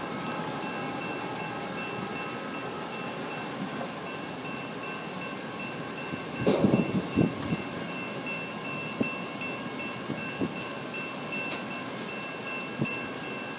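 Railroad grade-crossing bell ringing with evenly repeated strikes over steady rumble, as the tail of a train rolls past in the first few seconds. A brief cluster of loud thumps comes about halfway through.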